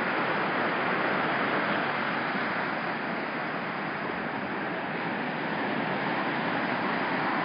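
Ocean surf washing onto the beach, a steady hiss that eases a little midway and builds again.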